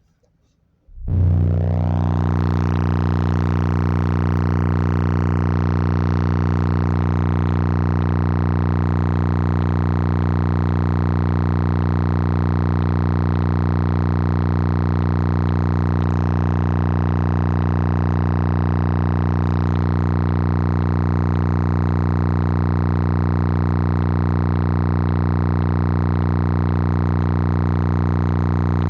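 Three 15-inch Slapz Audio Oblivion car subwoofers playing a 30 Hz test tone at full power, recorded at -5 dB. It is a loud, steady low drone with many overtones that starts about a second in and holds without change, a sustained voltage-drop test under full load.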